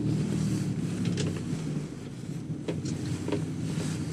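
Vehicle engine running steadily with a low hum, with a few light clicks and taps over it.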